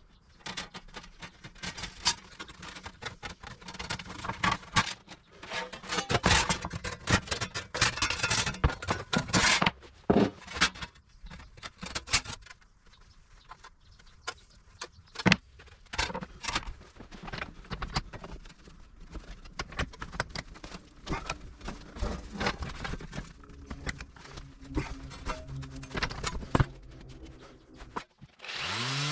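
Irregular clicks, taps and scrapes of hand work with tools on sheet steel, busiest in the first ten seconds and thinning out after.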